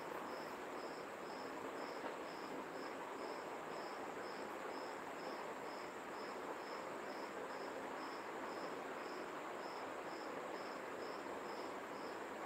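Faint cricket chirping at a steady rate of about two and a half chirps a second, over a steady hiss of room noise.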